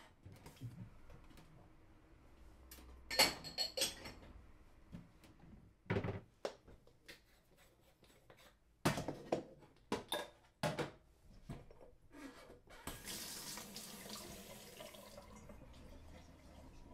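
Scattered knocks and clatters of a metal pot being handled over a small wood fire, then about two seconds of rushing, hissing water, like water being poured.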